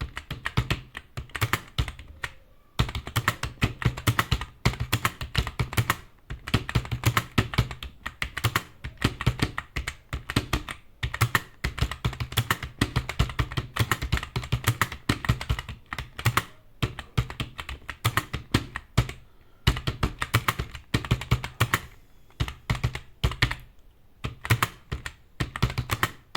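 Fast touch-typing on a computer keyboard: a rapid, steady stream of keystrokes broken by short pauses every few seconds.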